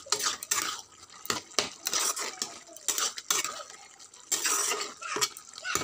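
A spatula stirring a watery bottle gourd curry in a pan, with repeated irregular scrapes and clinks against the pan.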